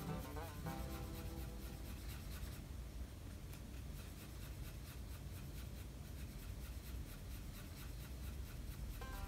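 Paintbrush bristles scrubbing and dabbing against a surface in quick, repeated strokes, working dried gouache back into a paste with water.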